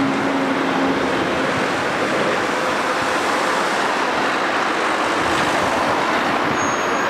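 Steady road traffic at a roundabout: an articulated tipper truck pulls away and cars and vans pass, with a faint engine hum fading out in the first two seconds. Wind buffets the microphone.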